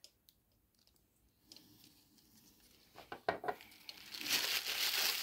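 Tissue paper rustling and crinkling as hands dig into a cardboard box, growing loud about four seconds in, after a few light knocks.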